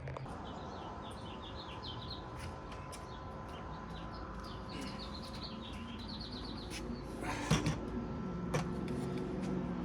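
A small songbird singing several short trills of quick repeated chirps, with a few faint clicks and one louder knock about seven and a half seconds in.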